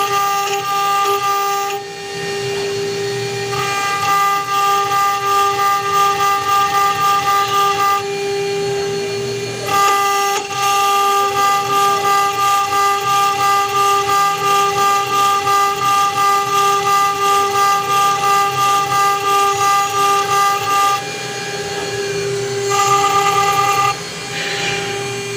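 CNC router spindle running with a steady high whine while its engraving bit cuts into a brass plate. The sound pulses about two to three times a second, with a few short breaks where only the spindle whine goes on.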